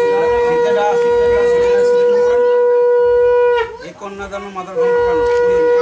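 Conch shell (shankha) blown in long, steady, loud notes at one pitch. One held blast ends about three and a half seconds in, and a second starts at the same pitch about a second later. At a Bengali wedding the conch is sounded as an auspicious call to mark the sindoor-daan rite.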